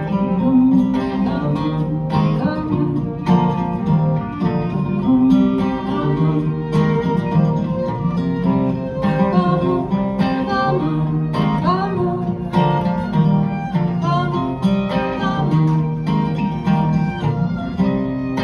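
Live acoustic string trio playing a tune: two acoustic guitars strumming a steady rhythm together with a fiddle.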